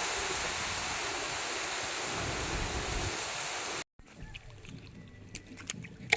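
Steady rushing outdoor noise, cutting off abruptly about four seconds in, followed by a quieter stretch with a few light clicks and taps.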